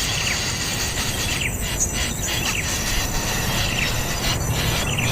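Outdoor ambience: insects keep up a steady high buzz while a small bird gives short chirps several times, over a low rumble of background noise.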